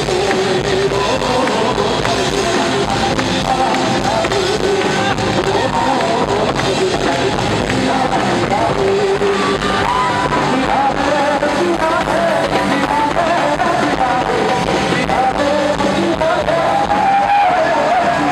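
A male singer singing live into a handheld microphone over band accompaniment, loud and continuous.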